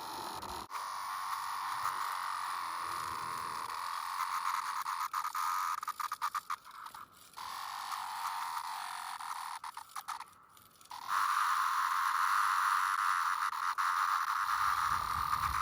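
Chorus of Brood X periodical cicadas, a steady high droning from many insects. It breaks up about five to seven seconds in, nearly drops out around ten seconds, then comes back louder about eleven seconds in.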